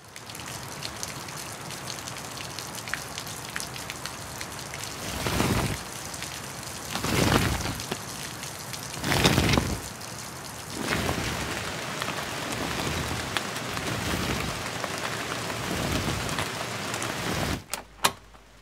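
Steady rain falling, with three louder swells about five, seven and nine seconds in. Near the end the rain stops abruptly, followed by a few sharp clicks.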